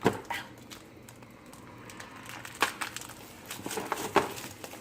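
A subscription box's cardboard and packaging being opened and handled: three sharp knocks or taps, one at the start, one halfway through and one near the end, with faint rustling between.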